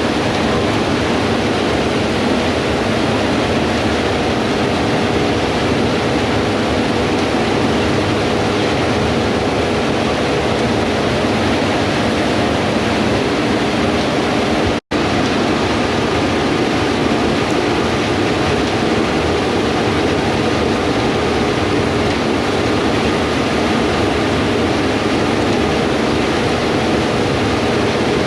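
Gleaner S98 combine harvesters running steadily while harvesting wheat: an even machine drone with a low engine hum under it. The sound cuts out for an instant about halfway through.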